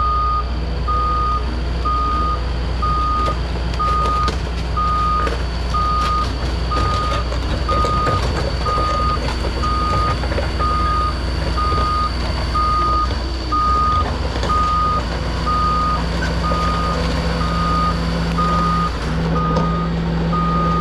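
Heavy-equipment backup alarm beeping steadily, a high tone repeating a little faster than once a second, over a large diesel engine running.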